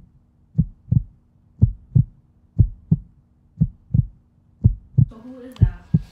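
Heartbeat sound effect: a low double thump, lub-dub, repeating about once a second over a faint steady hum.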